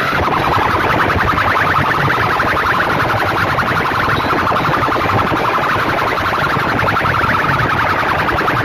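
Clusters of horn loudspeakers blaring at full volume in a sound-system competition, playing a harsh, rapidly pulsing siren-like tone.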